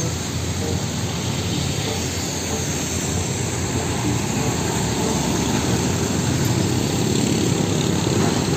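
Road traffic: a Hino diesel truck running as it drives past on a wet road, with motorbikes passing. The noise is a steady, even rumble and hiss.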